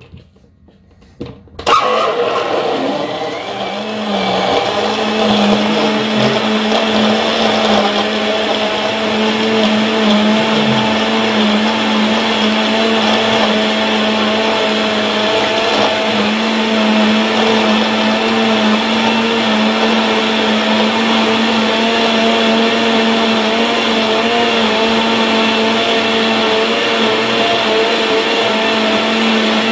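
A few light clicks as the lid goes onto the jug, then a countertop blender starts suddenly and runs at full speed, blending a smoothie with ice cubes in it. For the first couple of seconds the motor's pitch is lower and uneven as it works through the ice. It then settles into a steady, loud whine.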